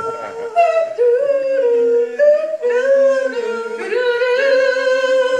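Women singing a melody in long held notes that step up and down in pitch.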